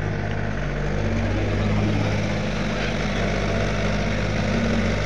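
Caterpillar E70B hydraulic excavator's diesel engine running steadily as the machine works, its note firming up slightly about a second in.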